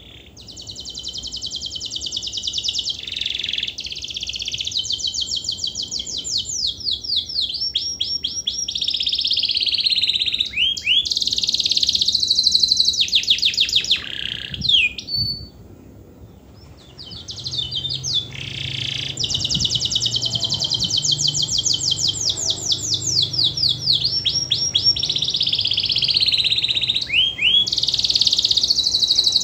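Domestic canary singing long, fast-trilled song phrases: rapid runs of repeated notes with descending swoops. It sings in two long bouts, with a pause of a few seconds about halfway.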